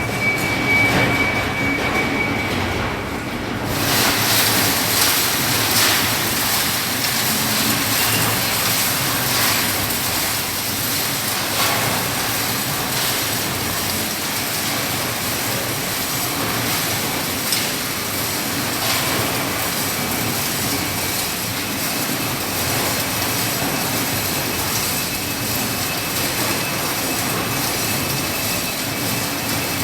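A gold trommel's rotating drum running, a steady dense rattle and rush of gravel tumbling with water, with scattered knocks. It gets brighter and a little louder about four seconds in, then keeps on evenly.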